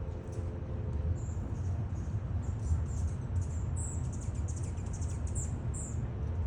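Small birds chirping: a rapid run of short, very high-pitched notes starting about a second in and coming thickest in the second half, over a steady low rumble.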